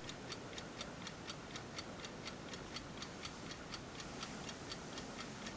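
1950s Goldbühl mechanical alarm clock ticking steadily, about four sharp ticks a second.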